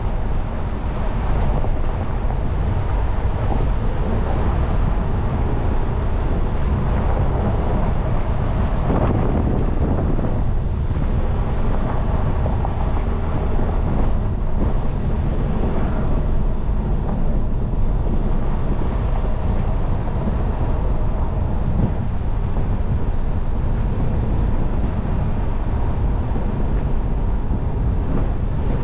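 A vehicle driving up a gravel and dirt road: steady engine and tyre noise on the loose surface.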